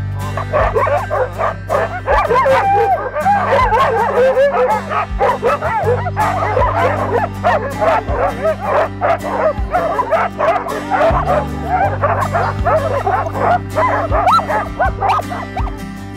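A team of harnessed sled dogs barking, yipping and howling together, many overlapping calls rising and falling in pitch: the excited clamour of sled dogs eager to run. Background music with a steady bass plays underneath.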